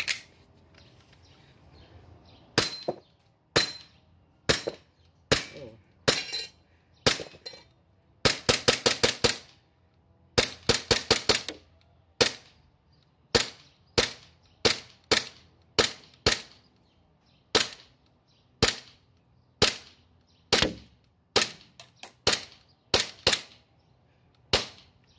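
Green-gas blowback airsoft Glock 18C pistol firing: sharp cracks one at a time, about one every half second to second, with two quick full-auto bursts about eight and ten seconds in.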